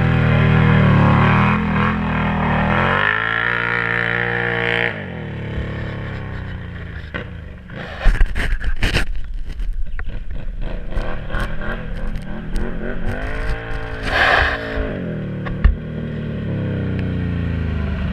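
Can-Am Renegade quad's V-twin engine revving hard under load as it churns through deep swamp water, the revs climbing and then dropping away about five seconds in. Later comes a stretch of low rumble and clattering knocks, then the engine revs up again and settles as the quad rides up close.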